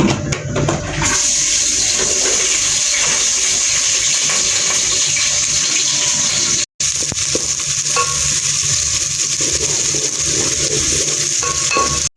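Food sizzling in hot oil in a pan: a loud, steady frying hiss that starts about a second in and cuts out briefly about seven seconds in.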